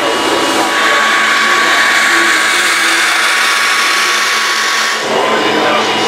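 Electric cooling fans on single-seater racing cars running: a loud, steady motor whir and rush of air, with a few thin steady tones in it. The whir changes, its brighter part dropping away, about five seconds in.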